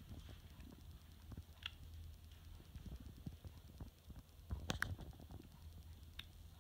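Button clicks of a wireless bicycle turn-signal remote: a few short sharp clicks, the loudest a double click about halfway through, over faint handling rumble.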